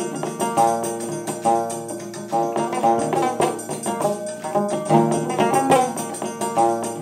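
A long-necked plucked string instrument played solo: a quick melody of picked notes, many in rapid repeated runs.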